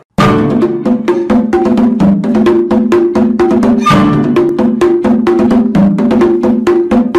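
Background music with a fast clicking percussion beat over steady low notes, starting abruptly just after a brief silence.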